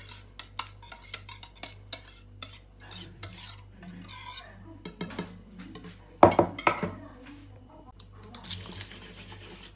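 Metal whisk scraping and clinking against the pot as thick custard is scraped out of it, a string of irregular clicks with a cluster of louder knocks about six seconds in.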